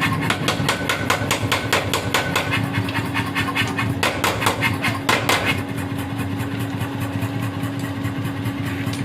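Mechanical forging hammer striking rapidly and evenly, about five blows a second, as it squares a small iron piece, over the steady hum of its motor. The blows go much quieter a little past halfway while the machine keeps running.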